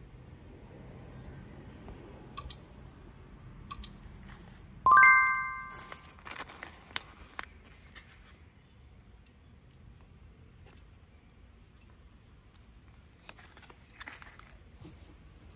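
A couple of sharp clicks, then a metal object struck once, ringing and dying away over about a second, followed by scattered clicks and rustling.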